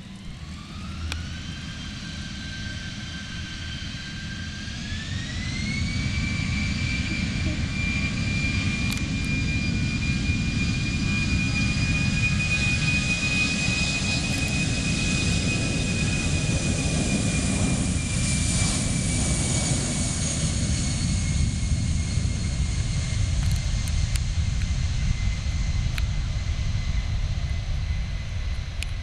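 Airbus A319's twin CFM56 turbofan engines spooling up for takeoff: a whine rises in two steps over the first six seconds, then holds high over a deep, growing rumble as the jet accelerates on the takeoff run. The whine sinks a little after about twenty seconds.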